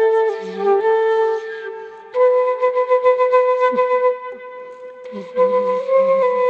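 Bamboo flute playing a slow melody of long held notes, one note changing to the next every second or so.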